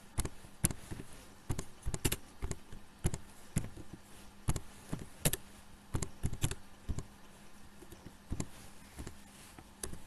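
Computer keyboard typing: single keystroke clicks at an irregular, unhurried pace, about two a second.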